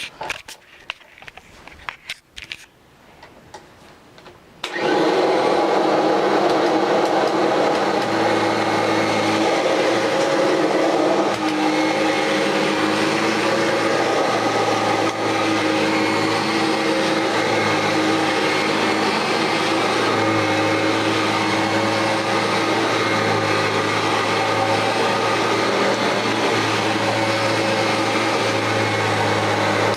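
A few quiet clicks and knocks, then about five seconds in a Kirby G4 upright vacuum cleaner switches on and runs steadily at full power, its fan motor giving a loud, even whine. A deeper hum joins in about eight seconds in.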